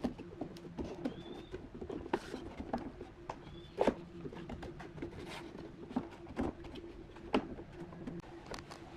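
Thin pine strips handled and laid against wooden guide blocks on a plywood bending form: irregular light knocks and clicks of wood on wood, over a faint steady hum.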